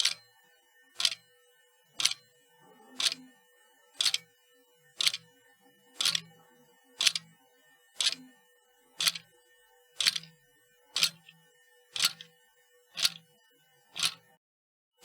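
Sharp mechanical clicks repeating evenly about once a second, each followed by a brief low knock, over a faint steady hum; the sound drops out briefly near the end.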